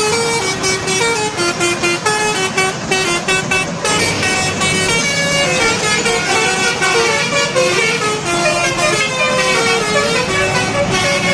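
Telolet bus horn: a multi-tone air horn playing a rapid melody of short stepping notes.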